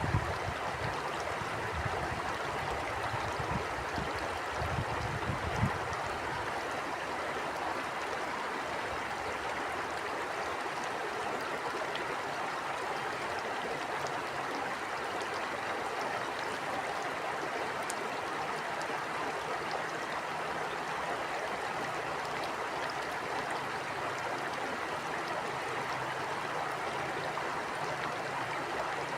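A river stream flowing and rushing steadily. During the first few seconds low gusts of wind buffet the microphone, then the water runs on alone.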